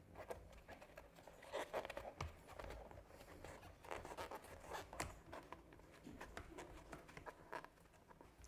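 Light, irregular clicks, taps and scrapes of leather pieces and small metal rivet parts being handled and fitted by hand on a work surface.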